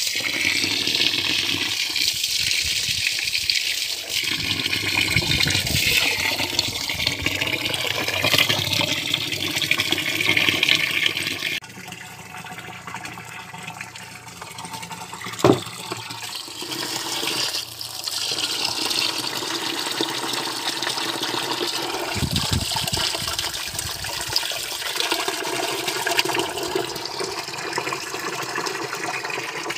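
Water from a hose pouring into a plastic drum of foamy mix, a steady rushing splash. About a third of the way in it drops away suddenly, a single sharp knock follows, and then a steady rushing noise returns.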